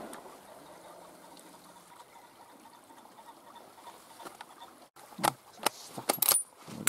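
Faint background hiss, then from about five seconds in a quick run of six or so sharp clicks and knocks as a .270 rifle resting on a wire fence is handled.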